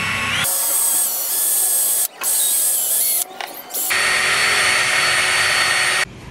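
Cordless drill running at speed with a small bit boring into a carved knife handle: a steady high whine in three runs with short breaks, stopping near the end.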